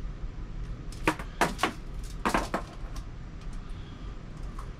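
Short metallic clatters, three bunches about a second apart, as hand tools and a wall-mount bracket are handled against a thin camper wall panel, over a steady low hum.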